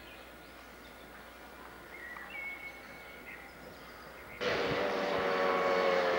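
Birds chirping faintly. About four seconds in, a much louder steady noise with several held tones cuts in suddenly and carries on.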